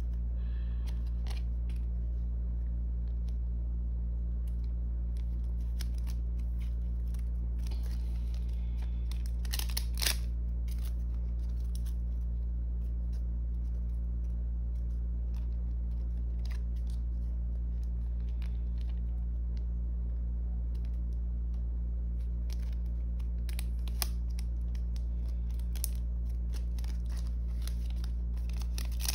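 Clear plastic photocard sleeves and cards being handled: sparse soft crinkles, rustles and small clicks as cards slide in and out of the sleeves, with a few sharper crackles about ten seconds in and near the end. A steady low hum runs underneath throughout and is the loudest part.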